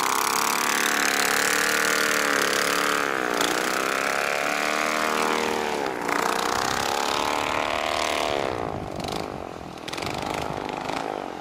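Airboat's twin-engine air-propulsion unit running hard, its two engines turning a 1250 mm wooden propeller. The engine pitch dips twice and climbs back as the throttle is eased and reopened, and the sound grows fainter near the end.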